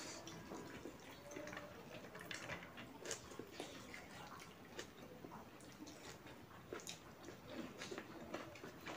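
Close-miked eating sounds: a person chewing a mouthful of rice and meat, with irregular wet mouth clicks and lip smacks.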